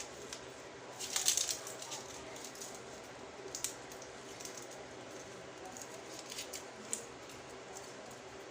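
Metal vegetable corer scraping and crunching into a raw onion, hollowing out its inside layers: soft scrapes with a few sharper crunches, the loudest cluster about a second in.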